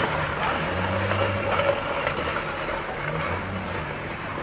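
Street ambience with a motor vehicle engine running nearby, a low hum that swells and fades over a steady traffic hiss.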